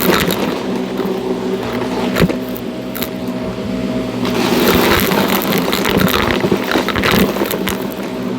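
Shark NV351 upright vacuum cleaner running, a steady motor hum and whine, with scattered sharp clicks and crackles as debris is sucked up. The hiss of the airflow grows louder about four seconds in.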